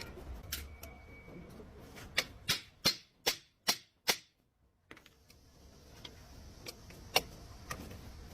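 A series of sharp metallic taps or knocks: six in a steady run about two to four seconds in, then a few scattered lighter clicks with one sharp knock near the end.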